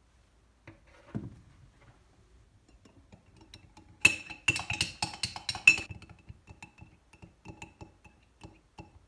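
Metal spoon stirring a dish soap and salt mixture in a ceramic mug, clinking rapidly against the sides. The clinking is loudest from about four to six seconds in, then goes on more lightly. A soft thump comes about a second in.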